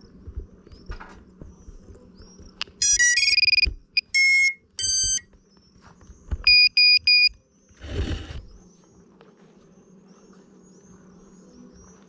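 Electronic beeps: a quick rising run of tones about three seconds in, two longer single tones, then three short even beeps. About eight seconds in comes a brief rustling bump of handling.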